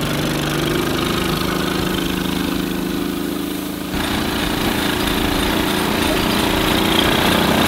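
Small engine of a kids' ride-on tractor running steadily as it tows a canoe across grass, with a brief dip about four seconds in.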